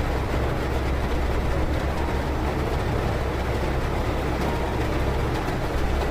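Heavy thunderstorm rain pouring on a car, heard from inside the car as a dense, steady rush.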